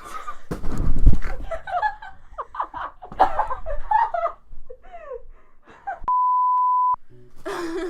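A steady 1 kHz censor bleep lasting just under a second, near the end, after a few seconds of excited voices. A low thump comes about a second in.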